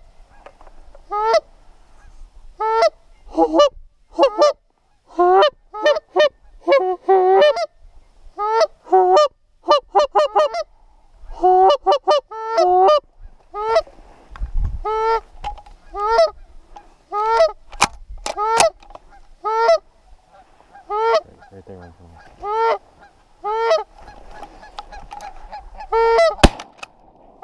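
Goose call blown in a steady run of Canada goose honks and clucks, single notes and quick doubles and triples, to lure an incoming goose. A few sharp clicks about two-thirds of the way through and again near the end.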